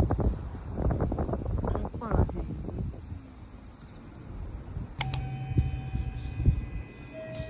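Crickets singing at night in one unbroken high trill, with low handling bumps from the phone as it is carried on a walk, loudest in the first few seconds. The trill cuts off about five seconds in.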